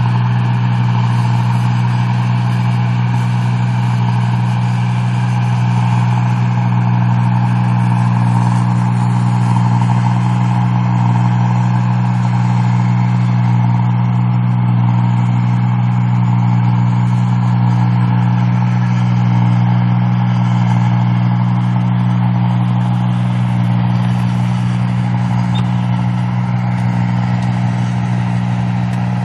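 A rice-processing machine running steadily, with an even, low engine drone that holds one speed throughout.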